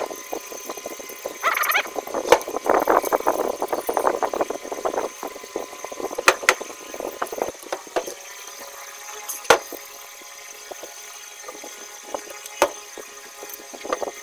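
Sandpaper rubbed by hand around the clutch-side oil-seal bore of a Yamaha 125ZR's aluminium crankcase, cleaning the bore so the seal goes in easily: a run of quick rasping strokes over the first few seconds, then a few scattered knocks.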